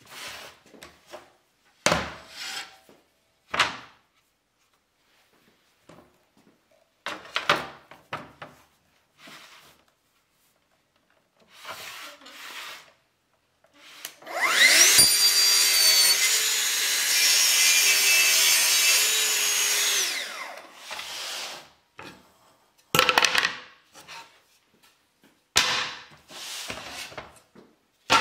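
Festool plunge track saw spinning up with a rising whine about halfway through, cutting along its guide rail through a wooden board for about six seconds, then winding down. Before and after the cut come short knocks and clunks as the rail and saw are set in place and lifted.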